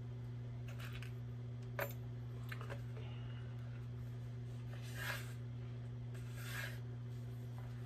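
Small pistol parts being handled: a sharp click about two seconds in, a couple of light ticks, and two brief rustling scrapes later on, over a steady low hum.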